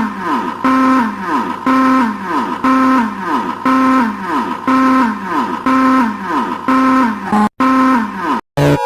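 Synthesized emergency alert siren: a held low tone with a higher tone over it, each ending in falling sweeps, repeating a little faster than once a second. Near the end it breaks off with two brief dropouts and a different, higher steady alert tone begins.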